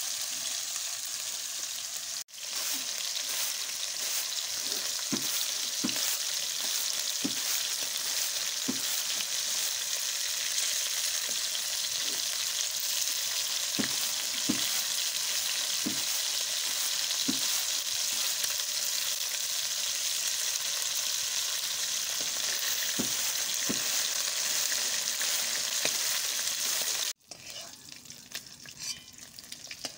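Food pieces frying in hot oil in a steel wok, a steady sizzle, with a metal spatula stirring and clicking against the pan now and then. Near the end the sizzle cuts off suddenly, leaving a quieter crackle with a few ticks.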